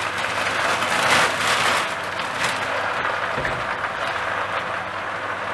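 Fresh spinach sizzling steadily in a wok on high heat, its moisture boiling off at once, as more leaves are tipped in from a plastic bag. The bag crinkles and rustles in the first half.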